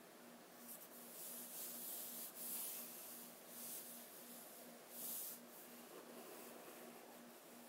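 A hand smoothing and rubbing over the paper pages of an open book: soft papery swishes, the loudest about two and a half seconds and five seconds in.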